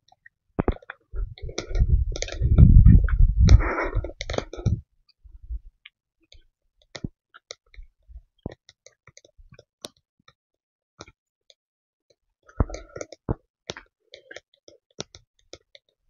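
Footsteps on a dry forest path: irregular crunches and sharp clicks, denser in the first five seconds and again near the end. A low rumble on the microphone goes with the first five seconds.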